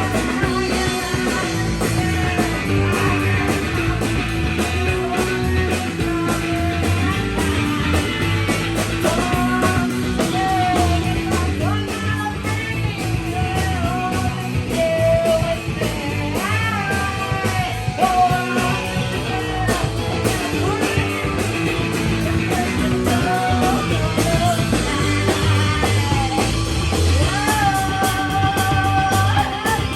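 Live rock song with electric guitar, bass and drums, and a singer holding and sliding between notes.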